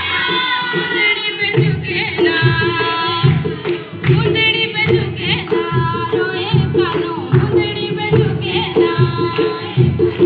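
Himachali Nati folk dance song: a singing voice and melody over a steady drum beat.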